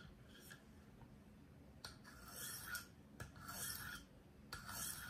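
Sharpening stone of a KME guided knife sharpener drawn along the edge of a 4-inch Henckels paring knife with very light pressure: three faint strokes about a second apart in the second half, the light alternating strokes that remove the burr before moving to a finer grit.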